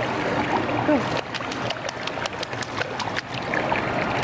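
Baby splashing and patting shallow pool water with its hands, a run of small quick splashes in the middle, over background voices in the pool.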